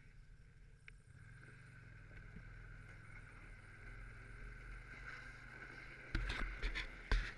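2007 Ski-Doo Legend Touring V-800 snowmobile with its four-stroke V-twin running as it travels over snow: a steady low hum with a whine that builds gradually. Near the end come several loud thumps.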